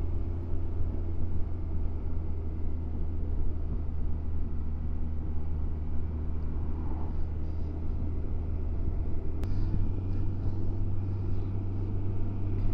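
Kawasaki Versys 1000 SE's inline-four engine running steadily while riding along an open road, heard from the rider's seat with road and wind noise. The engine note steps up slightly about nine and a half seconds in.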